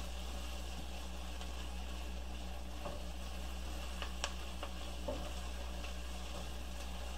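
Diced vegetables cooking in butter and flour, a roux, sizzling softly in a pot while being stirred with a spatula, with a few light taps of the spatula against the pot about four to five seconds in. A steady low hum runs underneath.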